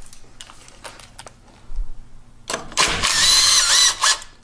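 A few light clicks of a tool on metal, then a small power driver runs for about a second and a half, its pitch wavering, as it spins out the 5 mm Allen bolt holding the fuel inlet mount on the throttle body.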